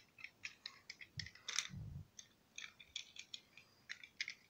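Faint, irregular small clicks and taps of toy cars being handled and put down, with a soft thump about a second and a half in.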